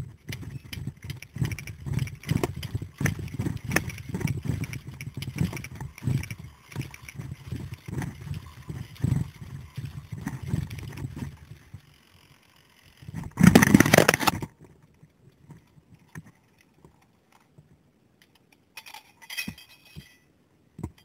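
Zipline trolley pulleys running fast along a steel cable: a continuous rattling whir with low rumble, which dies away about eleven seconds in. A loud rush of noise lasts about a second shortly after, followed by mostly quiet with a little clatter near the end.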